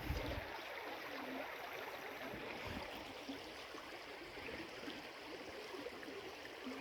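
Small river flowing, a steady even rush of water, with a couple of soft low thumps, one at the start and one nearly three seconds in.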